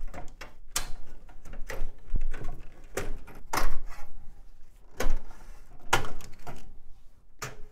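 Power and ribbon cable connectors being pulled loose inside a metal PC case: about seven separate sharp plastic clicks and knocks, with cable and sheet-metal handling noise between them.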